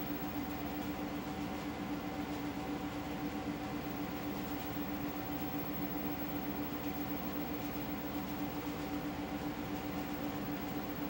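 A steady machine-like hum over an even hiss, unchanging throughout, with no speech or music.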